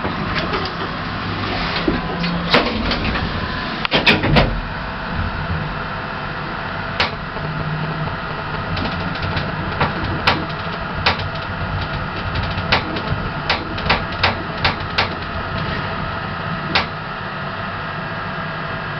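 Ride in a 1980s Thyssen hydraulic lift: a steady mechanical hum of the car in motion, with scattered clicks and knocks from the doors and lift mechanism, several close together past the middle.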